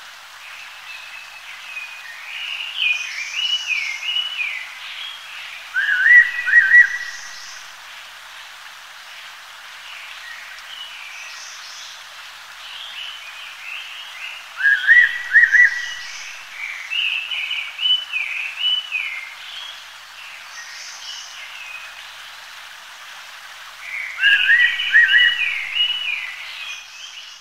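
Wild birds singing. A loud two-note whistle comes back about every nine or ten seconds, between phrases of quicker, zigzagging falling chirps, over a steady hiss of ambient noise.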